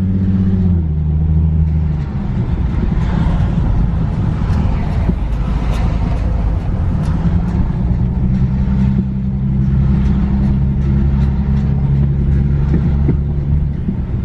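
Infiniti G37S driving with a steady low drone and road noise coming from the driver's-side wheel. The owner takes the noise for a bad, loose wheel bearing.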